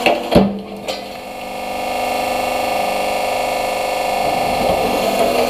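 A wooden block cracks once, sharply, as a hydraulic press crushes it, about a third of a second in. After that the press's hydraulic pump runs with a steady hum.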